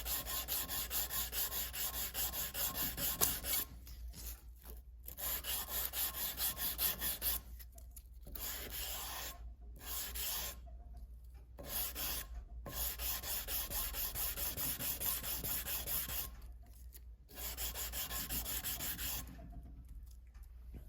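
400-grit sandpaper on a hand sanding block rubbed back and forth over the flat of a steel knife blade, in quick even strokes about four a second. The strokes come in runs of a few seconds with short pauses between. The blade is unhardened, before heat treatment.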